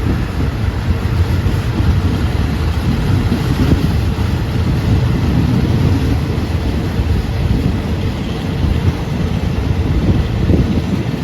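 Steady rumble of a moving passenger train, with wind buffeting the microphone.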